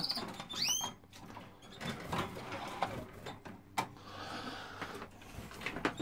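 A canary gives one short, high chirp with a curving pitch about half a second in. After it come a few light clicks and knocks, one sharper near the middle.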